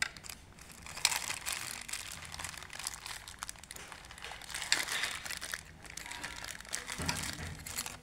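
Black plastic bag crinkling and rustling as it is bunched by hand around a photocell to cover its light sensor, in uneven crackles from about a second in.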